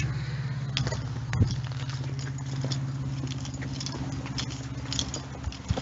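Footsteps on a gravel lane, a string of irregular soft crunches, over a steady low hum.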